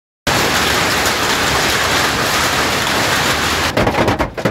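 Heavy hail pounding on the roof and windows of a truck cab, heard from inside: a loud, dense, steady clatter that starts suddenly and breaks into more separate hits near the end.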